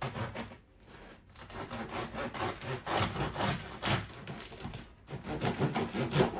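A knife sawing back and forth through the crust of a freshly baked loaf of bread, in a series of rasping strokes.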